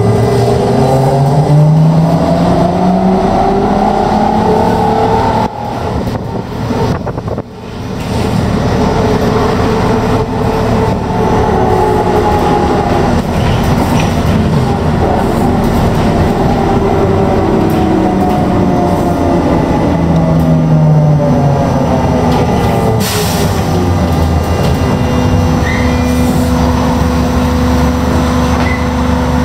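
Interior of a trolleybus on the move: the electric traction motor's whine rises in pitch as it pulls away and falls as it slows, more than once, over low road and body rumble. Near the end a steady hum takes over.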